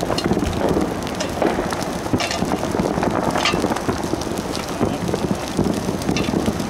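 Dry grass burning with an open flame front, crackling and popping steadily.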